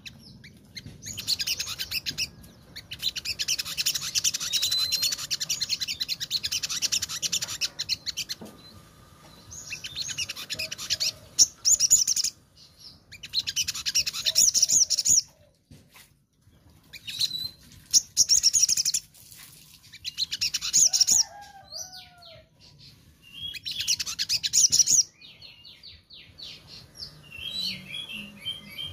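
Caged sogon singing vigorously ('gacor'): repeated bursts of fast, high twittering chatter a few seconds long, with short pauses between and a few lower slurred whistles midway. This is the full, energetic song that keepers play as a 'masteran' or 'pancingan' to set a quiet sogon singing.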